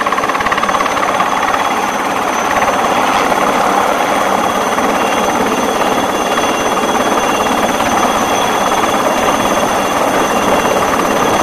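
Small single-engine turbine helicopter, a HAL Chetak (Alouette III type), hovering low and settling onto a ship's flight deck: a steady, rapid rotor beat over a thin, steady high turbine whine.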